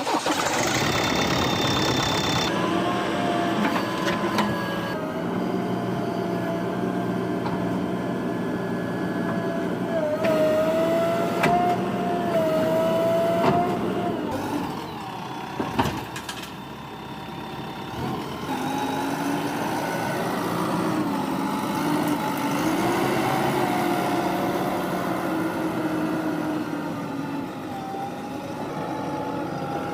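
Diesel engine of a backhoe loader running under work, its revs rising and falling, with a whine that rises and falls and a few knocks midway.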